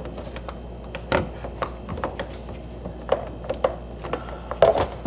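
Refrigerator kick plate being worked into place against the cabinet's base, irregular clicks and knocks as its tabs are pushed at their clips, with a denser burst of knocks about four and a half seconds in.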